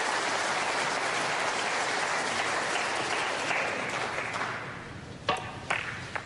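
Snooker audience applauding, dying away about four seconds in; two brief sharp sounds follow near the end.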